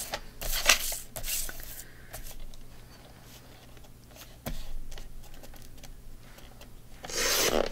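Paper rustling and small clicks as a sheet of patterned paper is turned over and slid into place on a sliding-blade paper trimmer. Near the end comes a louder, longer scrape as the trimmer's blade carriage runs down its rail, cutting the paper.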